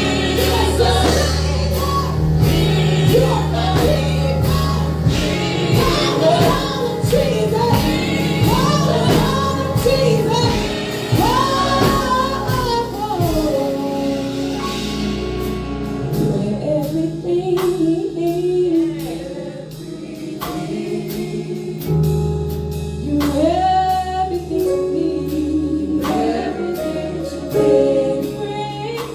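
Gospel worship music: singers over a band with a steady beat. The low bass drops out for several seconds about halfway through and then comes back.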